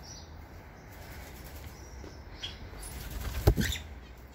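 Small aviary birds' wings fluttering, with one sharp thump about three and a half seconds in.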